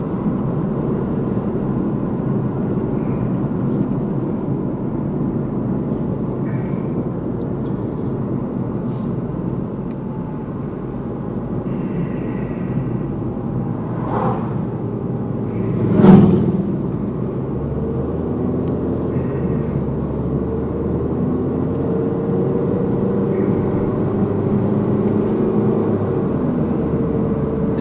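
Steady tyre and engine rumble heard inside a car's cabin while it drives at road speed. An oncoming vehicle passes once about halfway through, making the single loudest swell.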